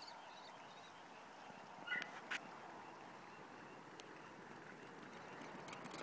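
Faint outdoor background hiss, with one brief animal call and a click about two seconds in.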